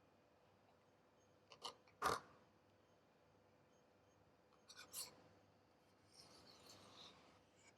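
Knife cutting steamed radish cake on a chopping board: a few sharp knocks of the blade on the board, a pair about a second and a half to two seconds in, the loudest just after two seconds, and another cluster around five seconds. Near the end comes a softer scraping that lasts about a second.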